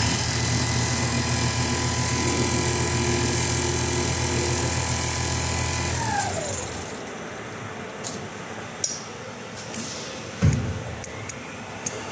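Richpeace automatic rotating-head sewing machine stitching heavy winter-jacket material: the needle mechanism runs fast with a rapid pulsing beat and a steady high whine. About six seconds in it winds down with a falling pitch and stops, leaving scattered clicks and a single thump.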